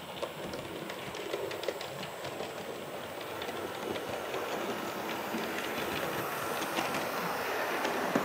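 OO gauge model train, a steam locomotive hauling coaches, running along the track with a steady rattle and rapid clicking of wheels over the rail joints, growing louder as it passes close by.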